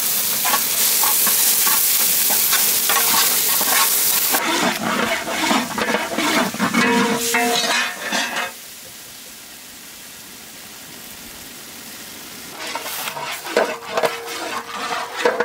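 Spice masala, just topped with hand-ground cumin, fennel and coriander seed paste, sizzling loudly in hot oil in a large iron pot, with a metal ladle stirring and scraping through it. The sizzle drops away after about four seconds, leaving scraping strokes, then goes quiet about eight seconds in; a few clinks and knocks follow near the end.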